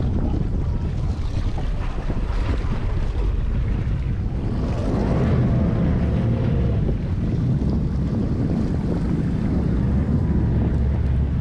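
Wind buffeting the action camera's microphone on an open offshore boat, a steady low rumbling rush, with sea water washing along the hull.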